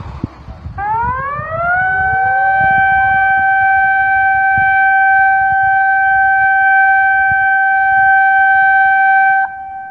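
Tsunami warning siren winding up in pitch for about a second, then holding one loud, steady wail. Near the end its level drops suddenly, leaving a fainter tone.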